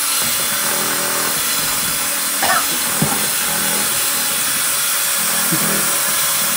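Cordless drill running steadily at speed, spinning a beater through thick batter in a plastic mixing bowl.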